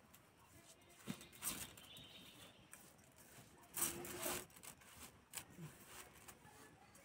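Hands rubbing and mixing raw Gobindobhog rice grains, wet with ghee and spice paste, in a stainless steel plate: faint gritty rustling, with louder rustles about one and a half and four seconds in.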